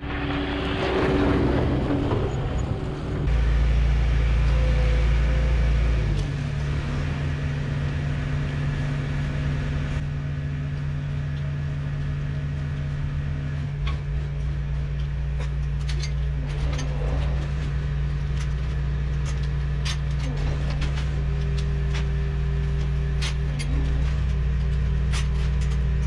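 Skid steer loader's diesel engine running steadily, heavier and deeper for a few seconds near the start, with scattered light clicks and knocks later on.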